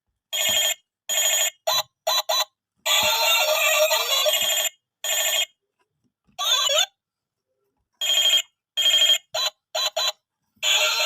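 Battery-operated Hello Kitty toy telephone playing electronic ringtone sound effects in a dozen short stop-start bursts with dead silence between them, one burst lasting nearly two seconds; near the end a continuous tune begins.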